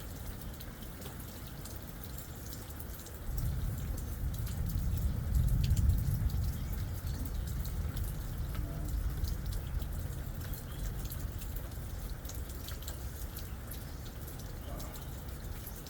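Rain dripping with scattered small ticks. About three seconds in, a low rumble of thunder begins suddenly, swells to its loudest a couple of seconds later and then slowly dies away.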